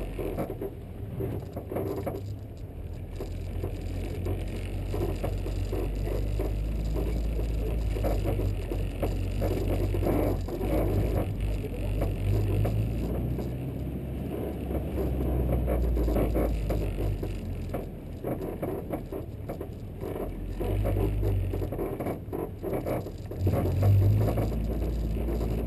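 A car running, a low rumble of engine and road noise that swells and eases.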